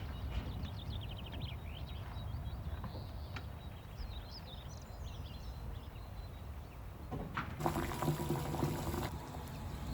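Liquid pouring for about a second and a half near the end, over a low steady background with faint high chirps.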